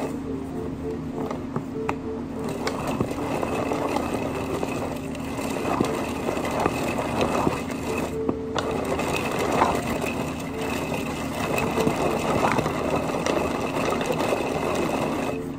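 Hand-powered pull-cord food chopper worked over and over: the cord whirring and the blades spinning, with chunks of lettuce rattling and being chopped inside the plastic bowl. It pauses briefly about halfway through.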